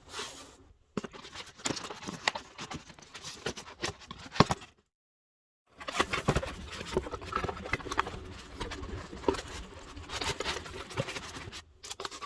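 Cardboard box and packaging being opened and handled: irregular rustling, scraping and small clicks. The sound drops out completely for about a second near the middle.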